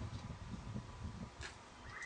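Hands handling the metal parts of a UHF grid aerial while fitting its bracket fixings: irregular dull bumps, with a single light click about one and a half seconds in.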